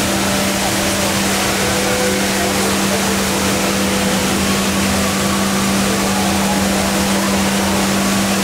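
The HSBC Rain Vortex indoor waterfall pouring down in a steady, loud rush of falling water, with a steady low hum underneath.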